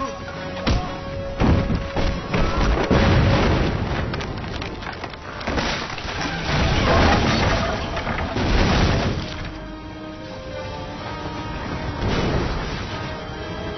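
Action-film fight soundtrack: dramatic score under heavy thuds, booms and crashes with wood splintering. After about nine seconds the impacts thin out and sustained musical tones carry on.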